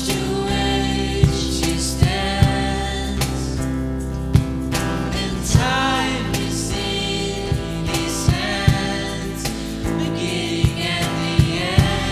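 Gospel worship song: singing voices carry a melody over sustained instrumental accompaniment, with regular drum hits.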